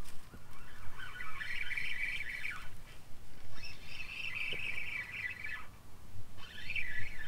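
Fishing reel being cranked to take in line in three spells of whirring, each a couple of seconds long, the first two slowing as they stop. The angler is reeling down on a fish that has taken the bait.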